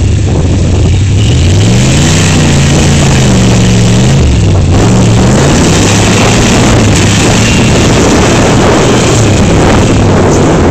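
A GMC Yukon SUV's engine revving under load as the wheels spin and churn through deep mud. The engine pitch rises sharply about two seconds in, then falls and swings up and down as the driver works the throttle.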